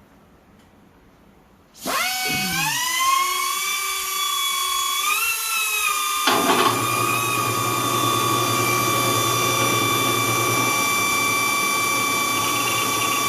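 A small high-speed grinder starts up with a high whine that rises in pitch and settles. About four seconds later the drill press motor comes on, adding a steady low hum under the whine, and both run on steadily.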